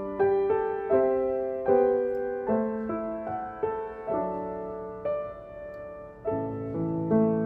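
Slow, gentle solo piano music, single notes and chords struck about every half-second to second and left to fade. It grows fuller and louder with deeper notes about six seconds in.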